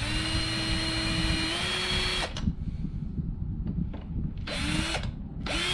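Cordless drill with a step bit boring bolt holes in a mini bike frame's sheet-metal engine-mounting plate. It runs steadily for about two seconds, its pitch rising slightly just before it stops. After a pause it gives two short bursts near the end.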